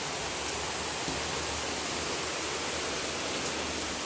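Heavy rain falling steadily: a constant, even hiss of rain and running water, with a faint drip or tick now and then.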